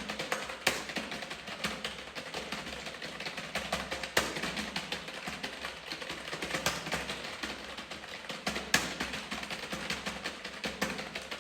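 Fast typing on a computer keyboard: a dense, continuous patter of key clicks, with a few much louder key strikes standing out.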